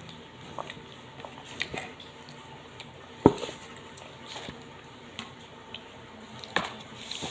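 Scattered small clicks and knocks from handling a steel bowl of grapes and a clear plastic cup of peanuts, with one sharp knock about three seconds in and another near the end.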